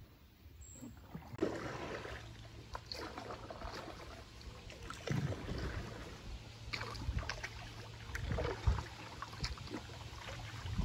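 Kayak paddling: water splashing and dripping off the paddle blades in irregular strokes, the louder splashes every second or two. The sound comes in suddenly about a second and a half in.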